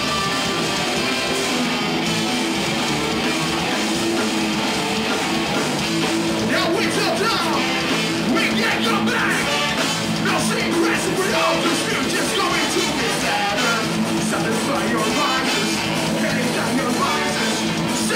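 Live ska-punk band playing loud, with electric guitars and drums; a singing voice comes in over the band about six seconds in.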